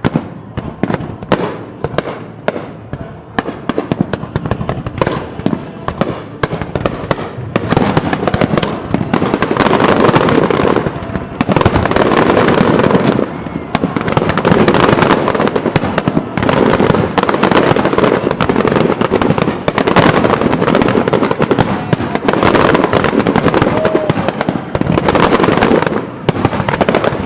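Fireworks display: rapid sharp bangs and crackling, thickening about eight seconds in into a near-continuous volley of many shells bursting at once.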